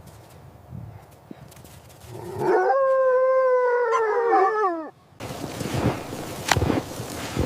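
Canine howl: after a faint low rumble, one long howl starts about two seconds in, holds steady and then falls away. It cuts off suddenly and a run of dull thuds follows.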